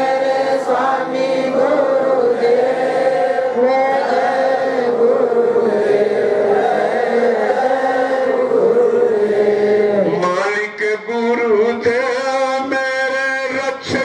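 Devotional chanting sung in a slow melody with long held notes; about ten seconds in it breaks into shorter phrases with brief pauses between them.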